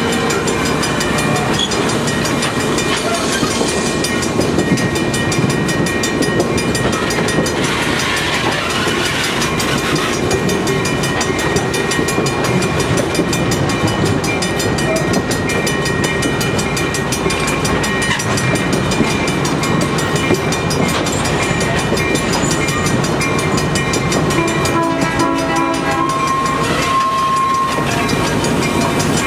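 Passenger coaches of a steam-hauled train rolling past close by: a steady rumble of steel wheels on rail with some clickety-clack, and thin squealing tones held over it.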